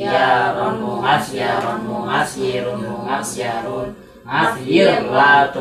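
Unaccompanied male voices chanting Arabic morphology verses or verb-pattern drills to a held, sing-song melody, breaking off briefly about four seconds in before going on.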